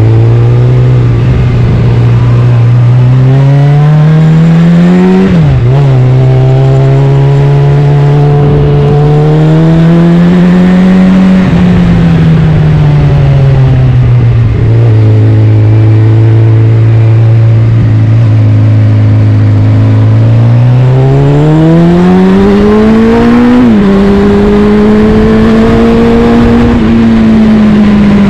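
Suzuki Bandit 650's inline-four engine through an aftermarket Black Widow exhaust, accelerating through the gears. The note climbs and then drops suddenly at each upshift, several times, and holds steady for about six seconds of cruising in the middle.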